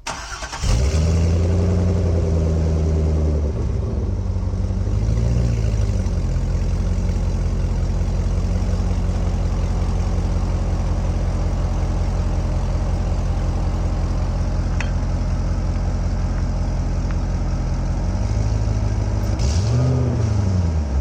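Chevrolet Corvette C6's 6.0-litre LS2 V8 through a gutted-cat, X-pipe and Borla axle-back exhaust with the spacer mod in place of the manifold donut gaskets, made louder: it starts about a second in, runs at a raised idle for a few seconds and settles, is blipped once, idles steadily, then is revved twice near the end.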